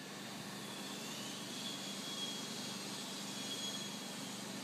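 Steady mechanical hum with a faint high whine: the running noise of machinery on a motorhome assembly floor.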